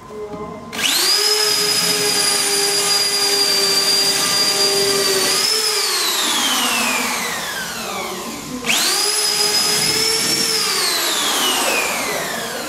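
Corded electric drill run at full speed twice, drilling holes in a painted wall. Each time its whine starts abruptly and holds steady for a few seconds. After the trigger is let go, the motor winds down with a falling pitch over two or three seconds.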